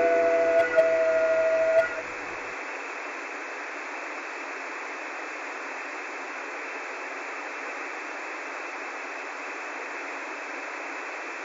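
Synthesized electronic sound: a chord of several steady held tones that cuts off about two seconds in, giving way to a steady hiss like radio static with no bass. It is the kind of synthetic audio made to hide a picture or code in its spectrogram.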